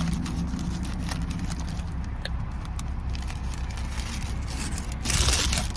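Steady low hum of a car idling, heard inside the cabin, with small handling clicks and a short burst of paper rustling about five seconds in as a biscuit in its wrapper is handled.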